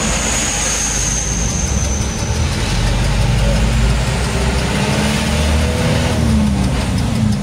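Diesel truck engine running steadily while driving, with a deep rumble and a thin high whine that fades out after about two seconds.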